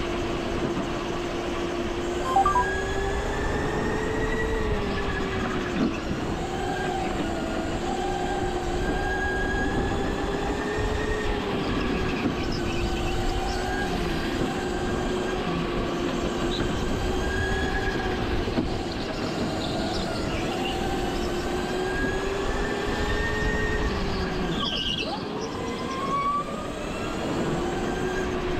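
Go-kart engine running at speed, its steady drone wavering slightly up and down with the throttle. Near the end the pitch drops briefly and then climbs again. There is a short knock about two seconds in.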